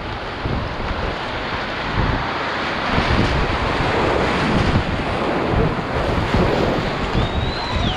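Whitewater rapids rushing and splashing around a kayak's bow as it runs a steep drop, with the water buffeting the microphone.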